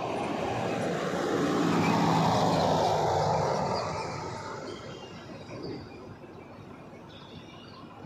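A motor vehicle passing close by on the street: its engine and tyre noise swell to a peak about two seconds in, then fade away, leaving a quieter steady traffic background.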